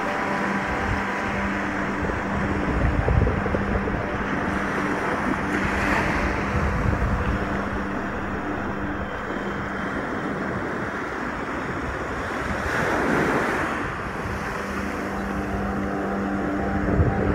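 Shallow surf washing in over sand as a steady foamy wash, swelling as waves run in about six and thirteen seconds in, with wind buffeting the microphone. Faint steady tones of background music sit underneath.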